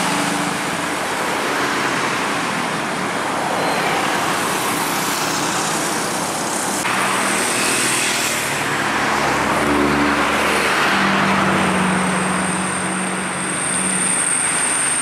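Busy road traffic: a loaded light truck pulling away, then cars, motorbikes and trucks passing, their engines and tyres running continuously. A thin high whine joins for the last few seconds.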